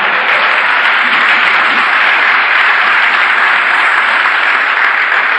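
Audience applauding: a dense, even sound of many people clapping, louder than the lecture speech around it.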